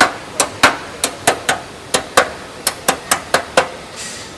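Hand hammer tapping on the edge of a bare aluminium Land Rover Defender body panel: about a dozen sharp, ringing metal taps in quick clusters of two or three, followed near the end by a brief soft hiss.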